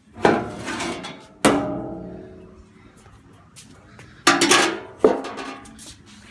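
Metal parts clanging: four sharp hits, each ringing on and fading, the second ringing longest.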